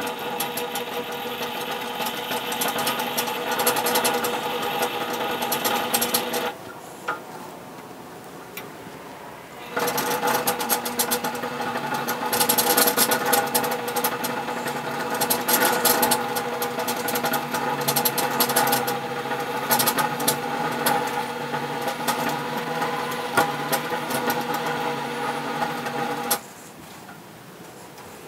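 Motor-driven bead roller running with a 3-inch steel exhaust tube turning between its dies: a steady mechanical whine with light metal rubbing. It runs about six seconds, stops for about three, then runs again for about sixteen seconds before stopping.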